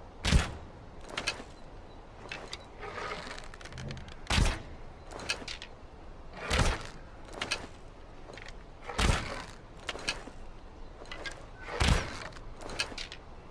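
Longbow being shot again and again: five sharp thwacks a few seconds apart, each followed by a lighter crack under a second later.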